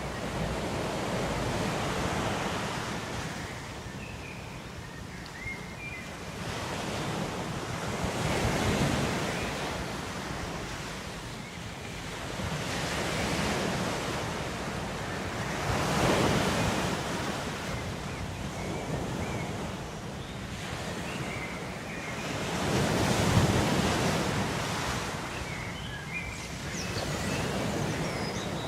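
Ocean waves breaking on a shore, the surf swelling and falling away every few seconds, with a few faint high chirps.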